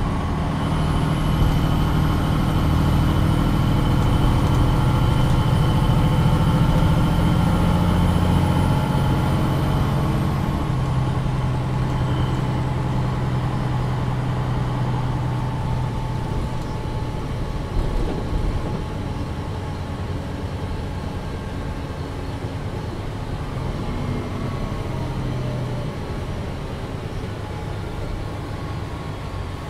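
MAN NG 313 articulated city bus heard from inside on the move: its diesel engine runs strongly for about ten seconds, then its note drops and quietens as the bus rolls on. There is a single knock about two-thirds of the way through.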